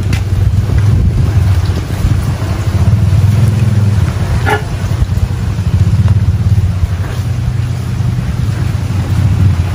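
Wind buffeting the microphone: a loud, uneven low rumble. A short high-pitched call sounds once, about four and a half seconds in.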